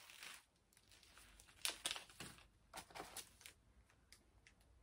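Faint crinkling and rustling of plastic snack-bar wrappers and product sachets being handled, with a few short crackles around the middle.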